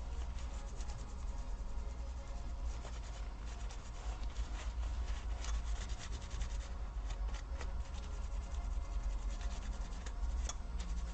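Something soft rubbed back and forth over the laptop's metal cooler (heatsink) to wipe off old thermal paste: continuous scratchy rubbing with small ticks and clicks, over a steady low hum.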